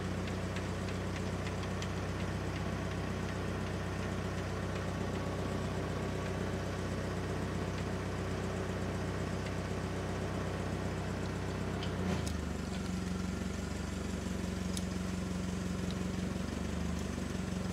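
Hyster forklift's Continental Y112 four-cylinder engine running steadily. About twelve seconds in, its note shifts with a light click, then it runs steady again.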